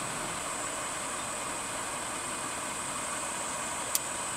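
Steady outdoor background noise, a constant hiss with a faint low rumble, and one sharp click about four seconds in.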